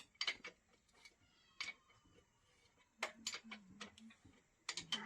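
Sharp metallic clicks and clinks of hand tools working on a motorcycle, coming in short runs of a few strikes with pauses between.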